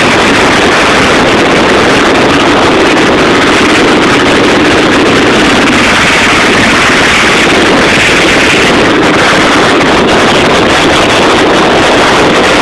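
Military helicopter taking off close by: loud, steady rotor and turbine noise, with wind buffeting the microphone.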